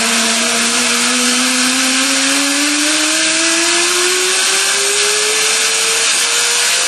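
RAD 50 pneumatic torque wrench running under air, a steady hiss with a whine that slowly rises in pitch.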